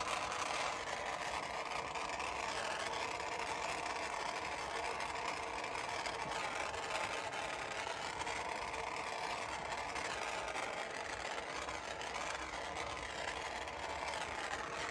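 Jeweler's soldering torch flame hissing steadily as it heats a silver ring assembly to flow the solder paste, with the flux burning off.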